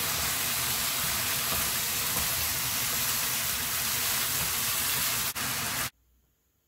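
Pork neck and vegetables in gochujang sauce sizzling hard in a wok as they stir-fry: a steady, even hiss. It breaks off for an instant about five seconds in, then stops abruptly about six seconds in.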